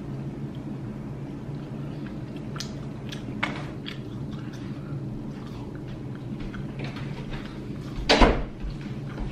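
A steady low hum with a few faint clicks, then one loud thump a little after eight seconds in.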